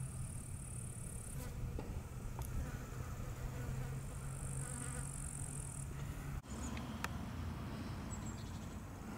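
Insects stridulating in a meadow: a high, steady buzz that sounds in two long stretches. A steady low hum runs underneath and breaks off suddenly about six seconds in.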